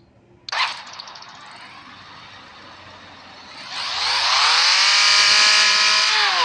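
Simulated car engine sound from the diagnostic simulator: a click, then an even running hiss, then the engine revving up, holding and dropping back near the end. The cylinder-2 injector plug is reconnected, and the misfire is fixed.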